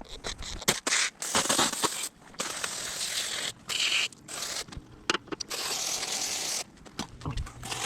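Garden hose spray blasting water onto a dirt bike frame in repeated bursts of hiss that start and stop abruptly, rinsing off paint stripper and loosened grime.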